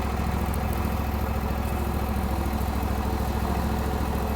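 Scag Turf Tiger II zero-turn mower running steadily with its engine and cutting deck engaged while mowing grass.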